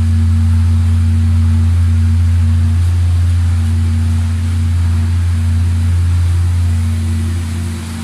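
LPG-fired WNS fire-tube steam boiler running: a steady, loud low hum.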